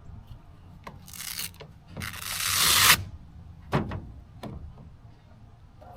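Handling sounds: a short rasp about a second in, then a longer, louder rasp that grows until it cuts off sharply, and a few sharp clicks.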